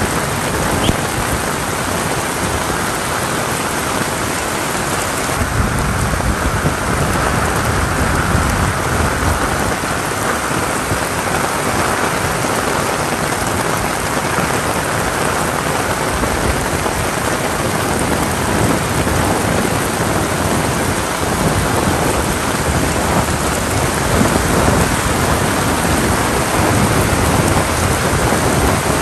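Heavy rain pouring steadily, with thunder rumbling underneath.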